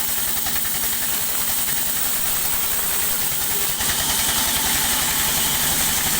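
Large sawmill machinery running steadily, with a rapid even low beat under a hissing noise; about four seconds in it grows a little louder and brighter.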